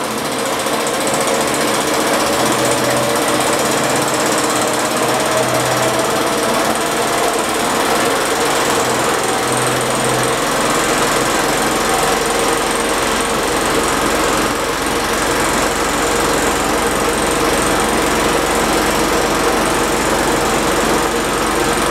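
Single-cylinder piston engine, heated externally, running with a fast, even beat over the steady hiss of the heaters warming its tube. A deeper hum comes in about halfway through.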